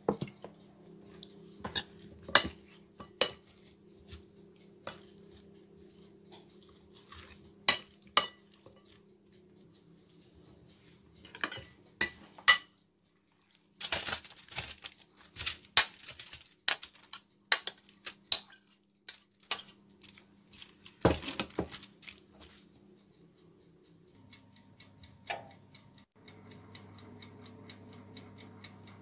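A metal spoon clinking and scraping against a glass bowl in irregular clatters as sliced potatoes, onion and peppers are tossed and spooned onto foil, with a denser stretch of clatter about halfway through. Near the end the clatter stops and a low steady hum sets in.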